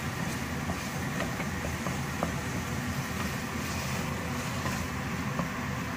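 Spatula stirring a thick onion-tomato masala in a pan, with light clicks of the spatula against the pan now and then, over a steady low rumble.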